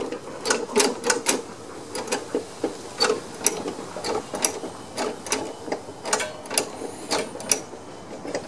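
Metal drive-engagement linkage of a Snapper Ninja lawn mower being worked back and forth by hand, engine off: a run of unevenly spaced metallic clicks and clunks, about two a second.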